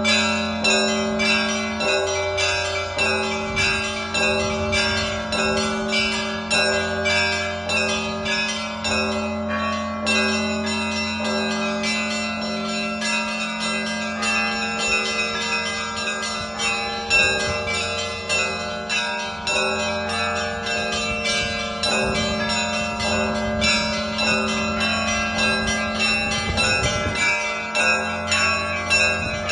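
Russian Orthodox church bell ringing (zvon) by one bell ringer. Small bells are struck in quick rhythmic patterns over the sustained hum of larger bells.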